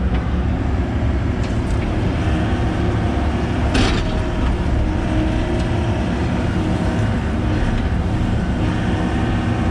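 Heavy diesel machinery running steadily while a dump truck is being loaded, with one short sharp clatter about four seconds in.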